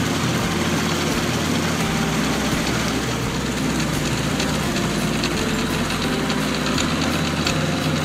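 Small open boat's motor running steadily at speed, with water rushing past the hull.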